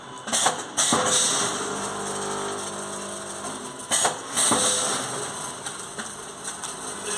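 Vertical form-fill-seal snack pouch packing machine running. Sharp clacks come in pairs about half a second apart, each followed by a hiss, near the start and again about four seconds in, over a steady machine hum.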